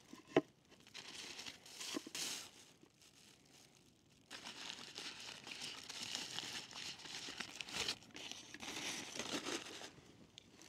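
Crinkling and rustling of something being handled, in a long stretch over the second half. A sharp knock comes about half a second in.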